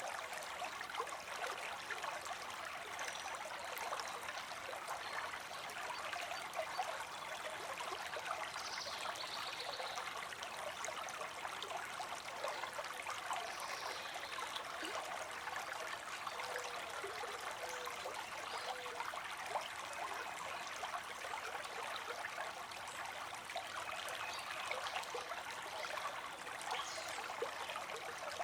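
Small creek trickling and babbling over stones, a steady even flow of water.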